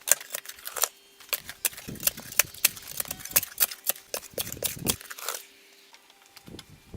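Metal parts and tools clinking and knocking against each other: an irregular run of sharp clicks, several a second, that stops about five and a half seconds in.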